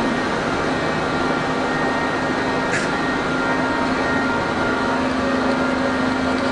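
Lathe running with a steady machine hum and one low steady tone throughout, with a brief high chirp about three seconds in.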